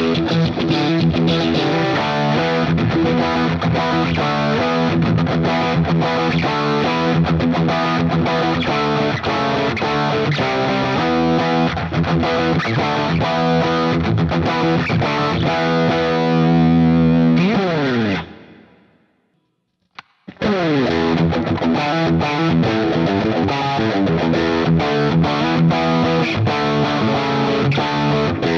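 Ibanez electric guitar played through heavy distortion, a fast riff on six-month-old Ernie Ball Regular Slinky strings. About 17 seconds in, a held note dives down in pitch and fades out; after about two seconds of silence the playing starts again, now on brand-new strings.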